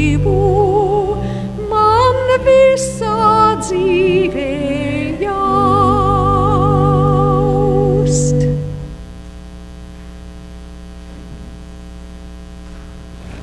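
Two women singing with vibrato over church organ accompaniment, ending on a long held final chord a little past halfway through. After that only a low steady hum remains.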